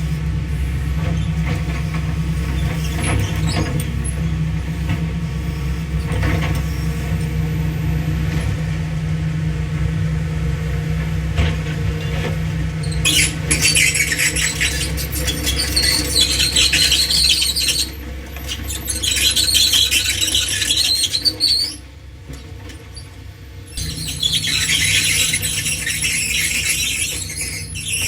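Hitachi ZX225USLC-3 tracked excavator's diesel engine running steadily; from about halfway, loud high-pitched metallic squealing comes and goes as the machine works, with a short quieter spell near the end.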